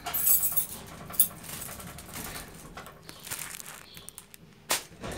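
Rustling and handling noise from things being carried and moved, with a sharp click a little over a second in and another near the end.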